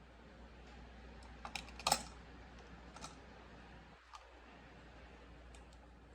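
A few scattered sharp clicks and taps, the loudest a quick cluster about two seconds in, over a steady low hum.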